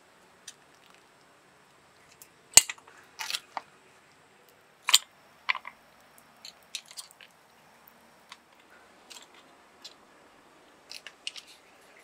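Metal tongs and cooked clam shells clacking as opened clams are lifted from the pot and dropped into a ceramic bowl. Scattered sharp clicks, the loudest a little over two seconds in and again near five seconds.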